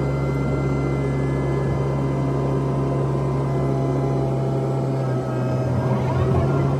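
Komatsu PC128 excavator's diesel engine running steadily under hydraulic load, heard from inside the cab, with a steady drone and thin whine from the hydraulics. The sound shifts and grows slightly louder near the end as the bucket scoops and curls dirt.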